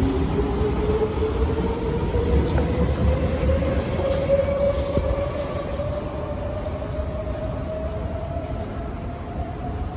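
SMRT Kawasaki–CSR Sifang C151A metro train accelerating out of the station: its traction motors give a whine that climbs steadily in pitch as it speeds up, over a low rumble of wheels on the track. The sound eases off a little after about five seconds as the train pulls away.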